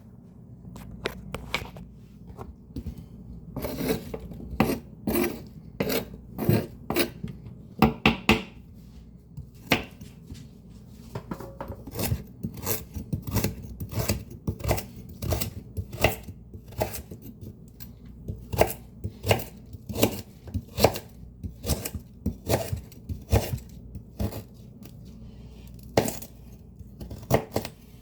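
Leafy greens being chopped: sharp, irregular chops about two a second over the steady hum of a fan.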